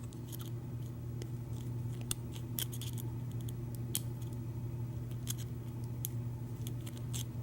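Irregular small metallic clicks and scrapes as a lock shim is worked into a Schlage deadbolt cylinder, one pin position at a time, over a steady low hum.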